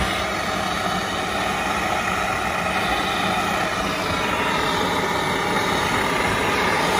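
A steady, unbroken mechanical drone, even in level throughout.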